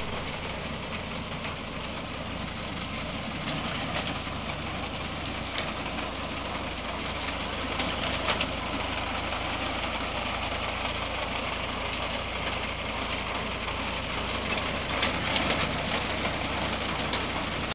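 Tractor engine running steadily while driving a three-point-mounted, PTO-driven reaper binder, with sharp clicks and clatter now and then.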